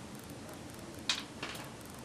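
A ferret eating dog food, with two sharp crunches about a second apart, the first a little past a second in.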